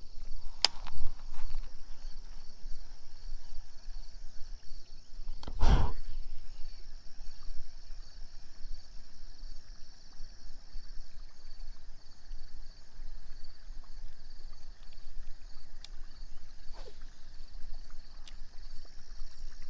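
Rural outdoor ambience: a steady high drone, a low rumble, a few light clicks, and one louder thump about six seconds in.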